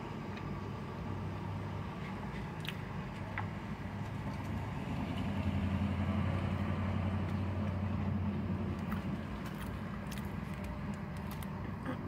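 Low, steady vehicle engine hum heard from inside a car cabin. It grows louder for a few seconds in the middle, and a few faint clicks sound over it.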